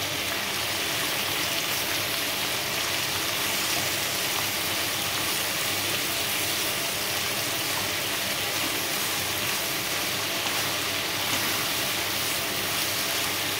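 Sliced onions sizzling in hot oil in a metal pan as they are stirred with a wooden spoon: a steady, even frying hiss.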